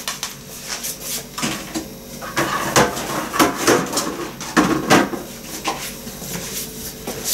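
Kitchenware being handled and set down: an irregular series of clinks and knocks.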